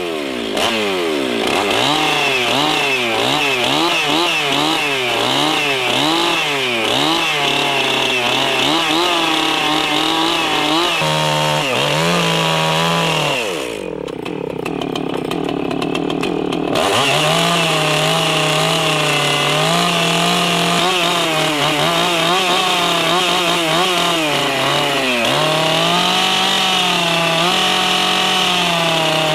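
Two-stroke chainsaw cutting into a log, its engine revving up and down roughly once a second through the first half. After a short duller dip about halfway, it is held at high revs, fairly steady, while the chain cuts the notch.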